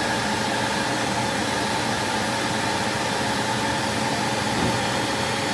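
Backpack vacuum cleaner running steadily as it sucks caked drywall dust off a clogged vacuum filter: an even rushing hiss with a faint motor hum underneath.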